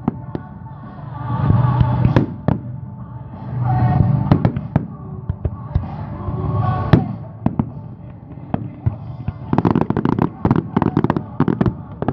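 Fireworks shells bursting in sharp bangs, with music swelling behind them. From about nine and a half seconds in, the shells give way to a rapid barrage of many bangs and crackles.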